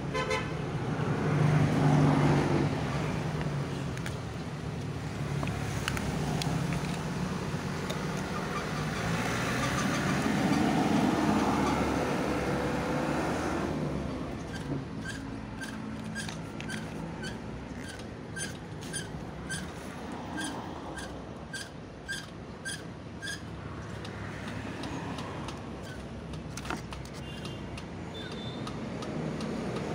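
Road traffic passing, swelling and fading twice. Midway comes a run of short, high, evenly spaced ticks, about two a second, lasting several seconds.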